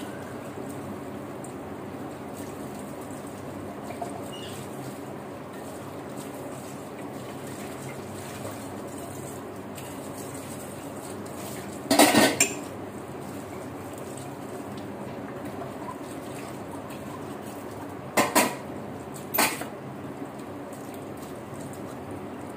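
Kitchen tap running steadily into a sink while dishes are washed. Loud clatters of dishes and utensils knocking together come about halfway through and twice more later, close together.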